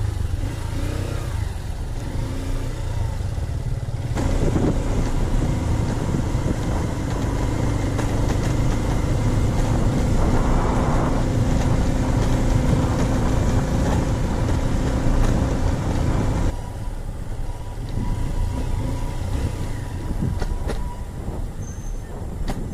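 Motorcycle engine running steadily on the move, heard from a camera on the bike, with road noise. The sound changes abruptly, getting louder about four seconds in and dropping back about sixteen seconds in.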